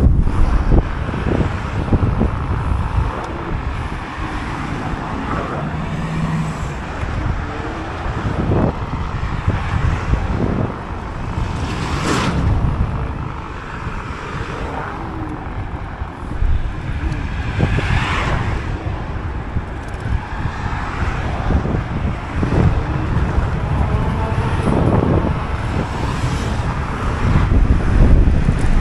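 Wind buffeting the microphone of a moving electric scooter, with cars going by in the adjacent road lanes. Two louder passes stand out, roughly a third and two-thirds of the way through.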